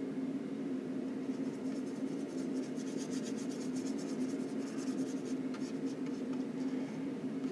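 A rapid run of scratchy strokes, typical of a bristle paintbrush working oil paint, starting about a second in and stopping around six seconds, over a steady low hum.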